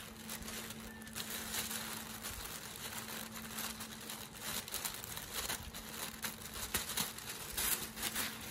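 Tissue paper crinkling and rustling in irregular handfuls as it is unfolded and peeled back from around a boxed handbag. A faint steady low hum sits underneath.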